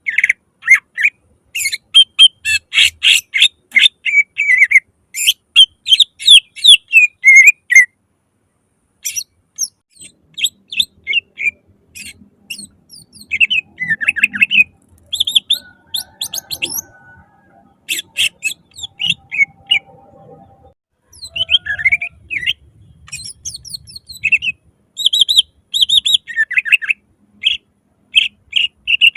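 Greater green leafbird (cucak ijo) singing loudly in fast runs of sharp chirps and whistled glides, broken by a pause of about a second near eight seconds in.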